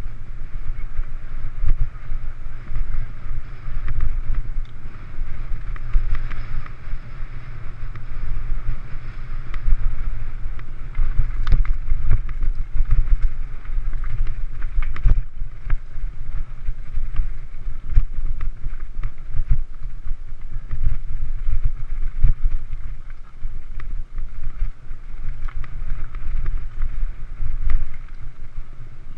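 Mountain bike riding fast down a dirt singletrack: a steady wind rumble on the microphone, with frequent short rattles and knocks as the bike goes over bumps.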